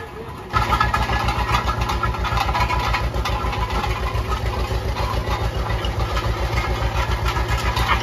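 1943 John Deere A's two-cylinder engine running steadily with a fast, even beat, cutting in abruptly about half a second in.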